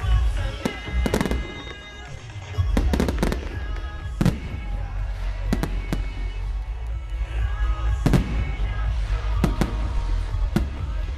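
Fireworks salute: shells bursting with sharp bangs, some single and some in quick clusters, every second or two over a low rumble.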